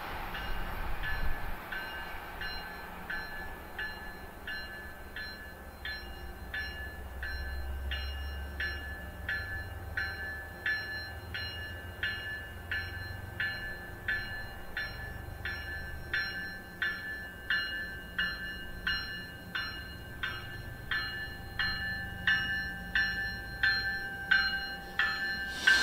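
Bell of an approaching MBTA commuter train ringing steadily, a little faster than one strike a second, getting louder as the train nears, over the low rumble of the train.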